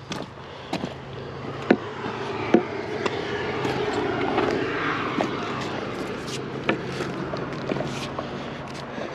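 A vehicle passing on the road, its sound swelling for a few seconds and fading away, over sharp taps of footsteps and a walking stick on rock and concrete.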